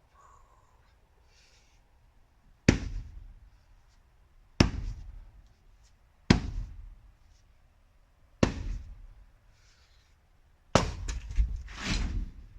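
An 8-pound splitting maul striking firewood rounds: five heavy blows about two seconds apart, the last followed by a quick cluster of knocks as the wood comes apart.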